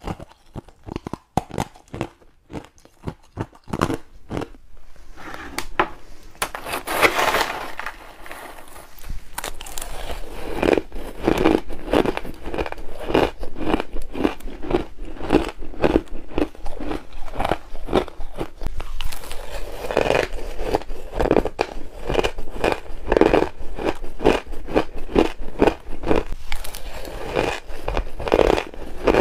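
Close-miked crunching of hard frozen ice chunks being bitten and chewed: crisp cracks and crunches, a few separate bites early on, then dense, continuous crunching from about a third of the way in.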